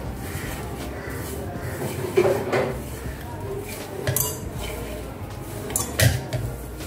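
Hand rubbing ghee into flour in a stainless steel bowl, mixing moyan into dough flour: a steady rustle of flour, with about three sharp knocks of the hand against the bowl's metal side.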